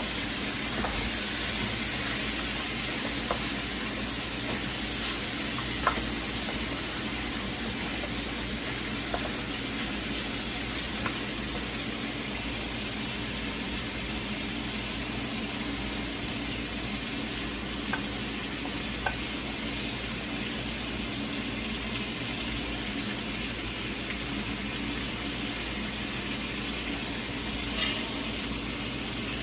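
Chunks of beef brisket sizzling as they brown in hot oil in a frying pan: a steady frying hiss with a few scattered clicks.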